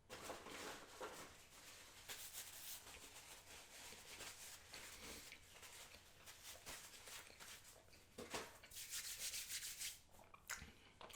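Faint, continuous rubbing and rustling, with a louder, scratchier stretch near the end.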